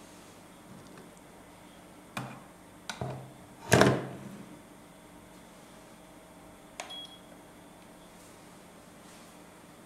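Turkish coffee machine being handled: a few plastic and metal clicks and knocks, the loudest a hard knock about four seconds in that rings briefly, then a click near seven seconds followed by a short high beep.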